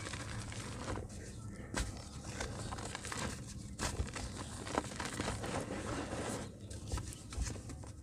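Dry, dusty mud crumbling apart: continuous crackling with scattered sharp little clicks and snaps.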